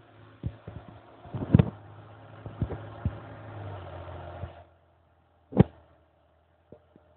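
David Brown tractor engine running steadily under load as the tractor pulls, with several sharp knocks over it, the loudest about one and a half seconds in. The engine sound cuts off suddenly after about four and a half seconds, and one more knock follows.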